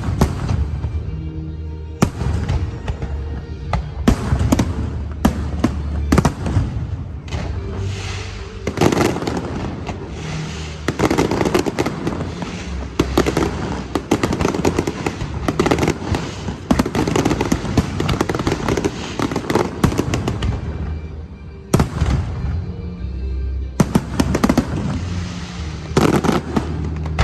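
Aerial fireworks bursting in quick succession, thickest in the middle, with a short lull before a final run of bursts, over background music.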